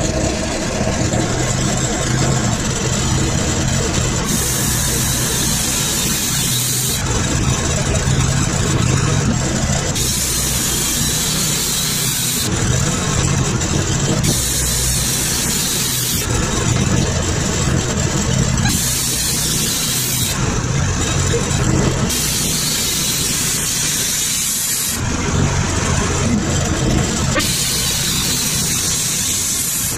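Background music over the steady running engine of a Wood-Mizer LT40 Super Wide portable band sawmill.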